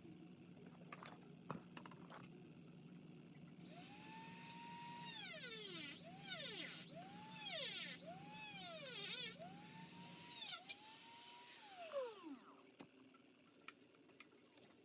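Dremel rotary tool cutting into a plastic Nerf blaster shell. Its whine repeatedly dips in pitch as the bit bites into the plastic and rises again as it frees, about six times, then it winds down with a falling pitch.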